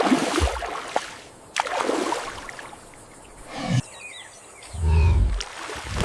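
A large wild animal growling and roaring in several separate bursts, the strongest and deepest about five seconds in, with faint high chirps in the background.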